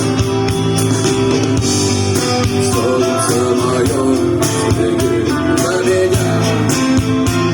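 Music with guitar: plucked and strummed guitar over a steady rhythm.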